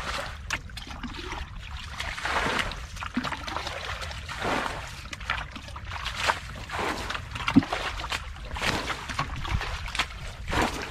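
Muddy water being bailed out of a shallow pit with a plastic bucket: repeated splashes as the bucket scoops and throws water, about one a second.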